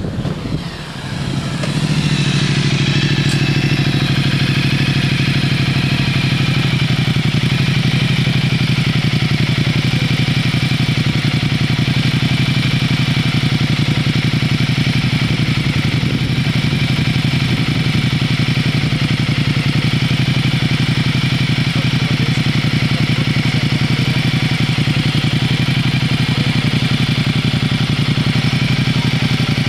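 An engine running steadily at an unchanging speed: a low hum with a stack of thinner tones above it. It swells up over the first couple of seconds and then holds level.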